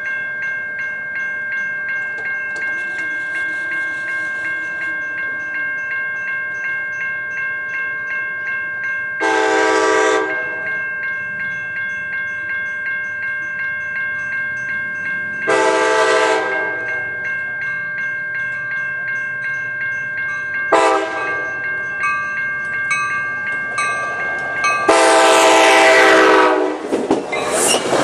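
Grade-crossing warning bell ringing steadily while an approaching Sounder commuter train sounds its horn in the crossing pattern: long, long, short, long, the last blast held longest. Near the end the bilevel cars rush past close by with rail noise.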